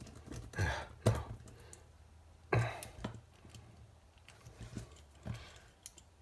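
Light, irregular clicks and knocks of a plastic cover and small parts being handled and fitted to a case, half a dozen separate taps over a few seconds.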